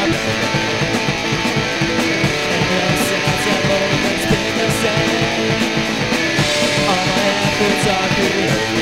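Pop-punk band music with no vocals: strummed guitar playing steadily throughout.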